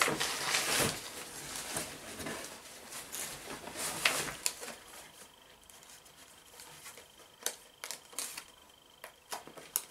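Rustling and scattered light clicks of items and packaging being handled inside a cardboard box, loudest in the first second and again around four seconds in, then faint.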